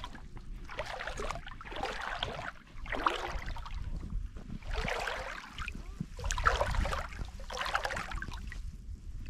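Bare feet wading through shallow, stony lake water, a splash with each step, about one a second.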